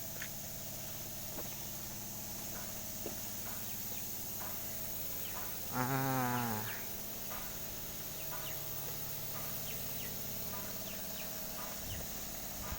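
Steady low machine hum with faint scattered chirps, and about six seconds in a single wavering call lasting about a second.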